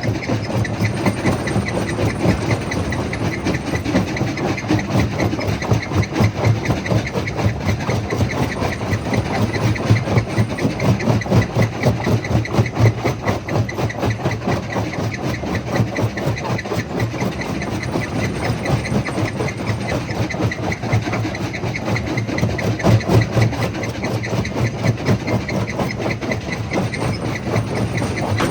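Stone jaw crusher running under load, a steady low mechanical pulse with a dense, fast clatter over it.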